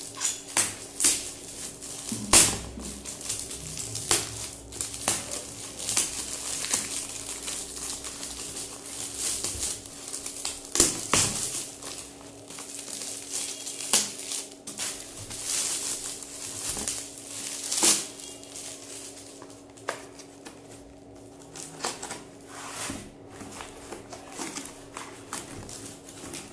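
Glossy gift-wrapping paper being torn and crumpled by hand: irregular crinkling and ripping with sharp crackles, heavier bursts around two seconds in, eleven seconds in and eighteen seconds in.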